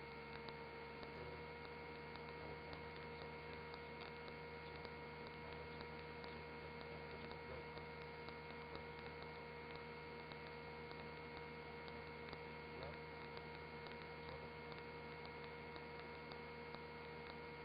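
Very faint, steady electrical hum made of several fixed tones, with light ticking throughout: a near-silent audio feed.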